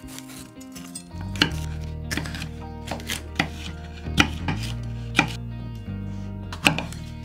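Chef's knife cutting a yellow bell pepper on a wooden cutting board: sharp knocks of the blade reaching the board, roughly one a second, irregularly spaced. Background music with a bass line runs underneath.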